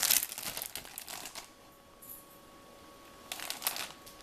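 Plastic model-kit parts trays in a plastic bag being handled, crinkling and rustling through the first second or so, then a pause and another short rustle near the end.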